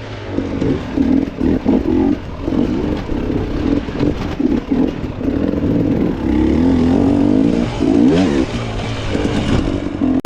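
Dirt bike engine revving in repeated short throttle bursts, pitch rising and falling, with a longer rising rev near the end.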